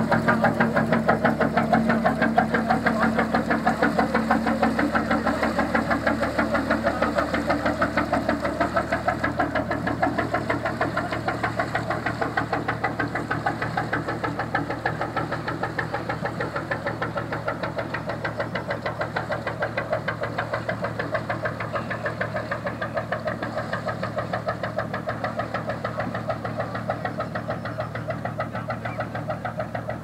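A 1954 Union two-cylinder semi-diesel (hot-bulb) engine in a wooden fishing cutter running under way with its steady, even knocking beat. The sound slowly fades as the boat moves away.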